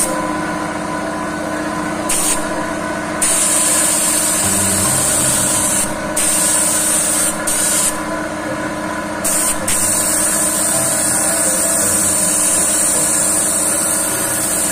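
Gravity-feed air spray gun hissing as it sprays paint onto a car bumper. The hiss comes in passes, broken by short pauses when the trigger is let off several times in the first ten seconds. A steady machine hum runs underneath.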